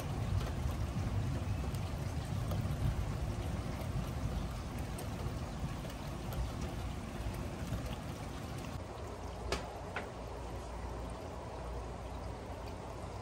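Steady rain falling and running outside, heard through an open window, with a low rumble in the first half that dies away. Two small ticks come about two-thirds of the way through.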